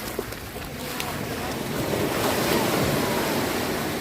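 Sea water sloshing with wind on the microphone, a steady rushing noise that swells in the middle.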